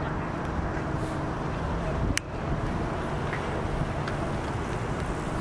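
A Nikon F6 film camera's back door snaps shut over a freshly loaded roll, one sharp click about two seconds in, over a steady low hum of distant traffic.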